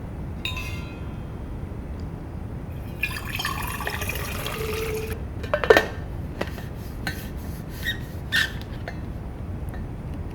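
Liquid pouring into a container for about two seconds, followed by a sharp knock and several lighter clinks and taps with a short ring.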